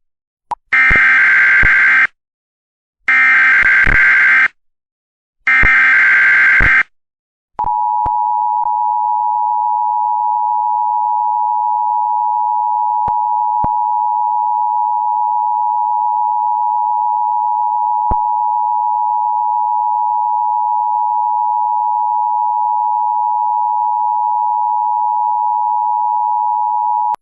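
Emergency Alert System tones: three short bursts of digital SAME header data, each a little over a second long with gaps between, then from about seven and a half seconds in the steady two-tone EAS attention signal (853 and 960 Hz), held unbroken for about twenty seconds.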